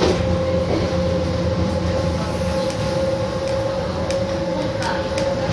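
Z 5300 electric multiple unit running, heard from inside the carriage: steady running noise with a constant, unchanging hum. A few light clicks come about four to five seconds in.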